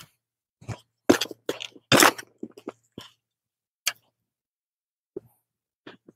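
Square-bladed shovel scraping and scooping garden soil and dumping it into stacked tires: a string of short gritty scrapes and thuds, busiest in the first three seconds, then a few scattered ones.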